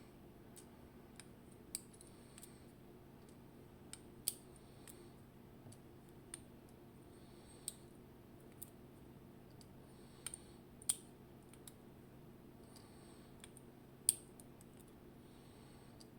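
Small metal driver pins being taken out of a disassembled Vachette V DIS+ dimple-lock cylinder, giving sparse, irregular light metallic clicks, the sharpest about 4, 11 and 14 seconds in, over a faint steady hum.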